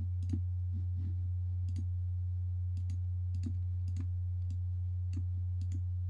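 Scattered, irregular clicks of a computer keyboard and mouse over a steady low hum.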